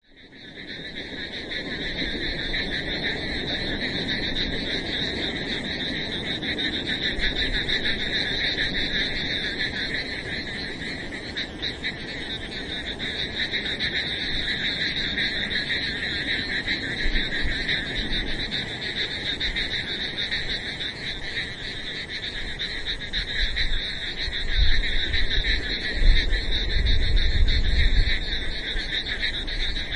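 A dense chorus of many frogs calling continuously, a fast pulsing trill over a steady low wash; a low rumble swells up near the end.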